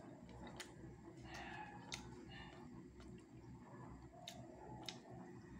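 Faint table-side eating sounds: a few sharp, irregular clicks and soft rustles as pandesal is torn and dunked into a mug of coffee, over quiet room tone.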